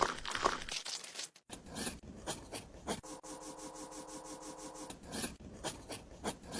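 Scraping, rubbing and light tapping of small hand work on a miniature brick model. A faint steady hum joins in for about two seconds in the middle.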